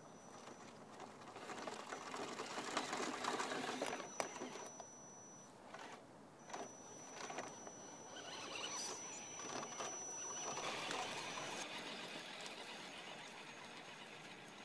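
Electric motors and drivetrains of RC scale crawler trucks running as they tow camper trailers, with a thin high whine that stops and starts as the throttle is worked. The tyres crackle over gravel and dirt.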